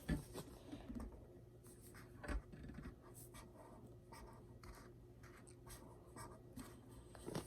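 Faint scratching of a drawing tool on paper in many short, irregular strokes as a picture is drawn.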